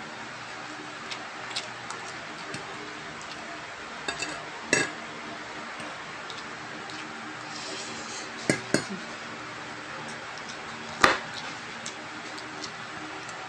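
Metal spoon and fork clinking and scraping against a plate of noodles and rice while eating: a few scattered sharp clinks, the loudest near the end, over a steady faint hiss.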